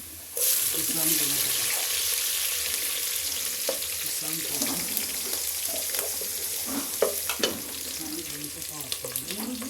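Vegetables sizzling in hot oil in a frying pan. The sizzle starts suddenly about half a second in and then runs on steadily, with a few sharp clinks of a utensil against the pan while stirring.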